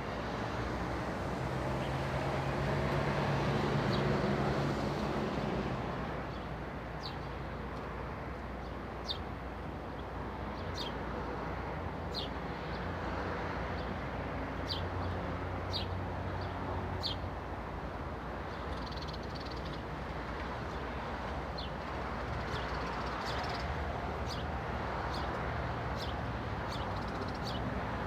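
Residential street ambience: a steady background hum of distant traffic, with a vehicle passing by in the first few seconds, then a bird giving short high chirps about once a second.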